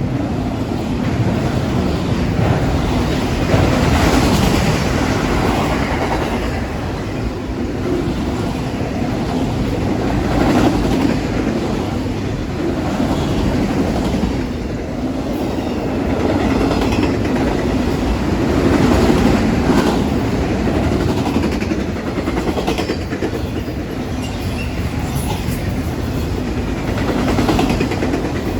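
Norfolk Southern freight train's cars rolling past, a steady rumble of wheels on rail that swells and eases every few seconds.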